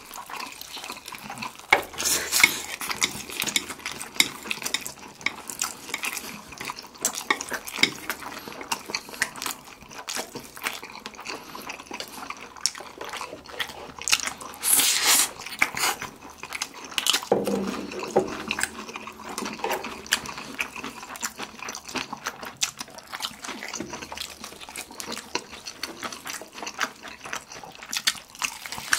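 Close-miked eating sounds of two people: wet chewing, lip smacks and bites into sauced fried chicken drumsticks. There is one loud slurp of Jjapaghetti noodles about halfway through.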